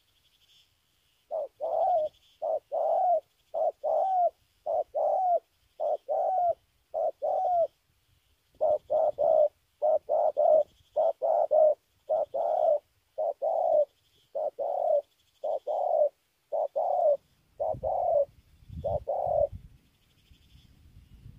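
Spotted dove (cu gáy) cooing in a long run of short, arched coos, pausing briefly about eight seconds in and falling silent near the end.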